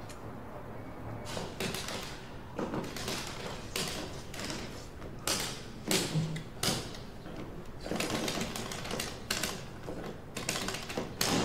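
Irregular quick clicks and taps, with a few louder clatters, starting about a second in.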